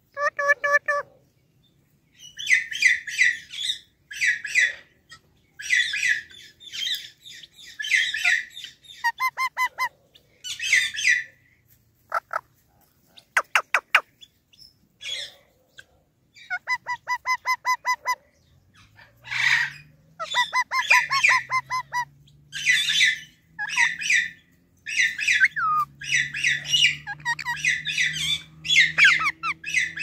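Indian ringneck parakeets squawking in a long run of short repeated calls, broken twice by bursts of fast, even chatter.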